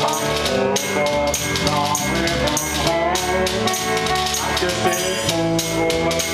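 Live band playing an instrumental passage: electric guitar and bass guitar over a steady percussion beat, with a lead line whose notes bend in pitch.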